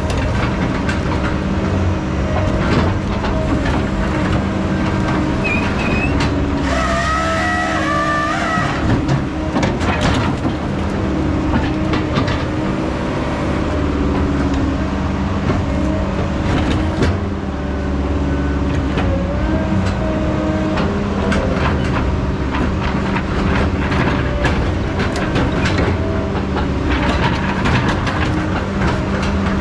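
Heavy diesel logging machinery running steadily, its engine pitch shifting as it works, with a wavering higher whine about seven seconds in and scattered knocks and clanks throughout.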